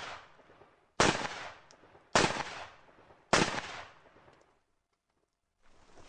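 AK-47 rifle firing single shots of 7.62×39 mm armour-piercing incendiary ammunition: three sharp shots about a second apart, each trailing off in a short echo. The echo of a shot fired just before fades out at the start.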